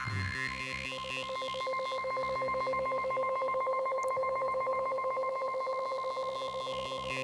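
Alchemy software synthesizer playing an electronic 'telemetry'-style patch: steady high beeping tones like telephone tones over a low pulse of about three beats a second.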